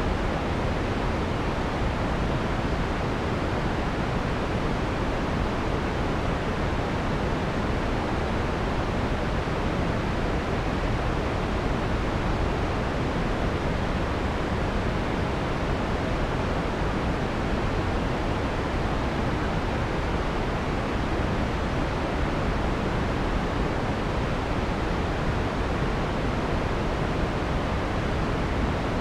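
Generated white noise with the harsh high frequencies filtered out: a steady, even hiss weighted toward the low and middle range, softening off in the treble.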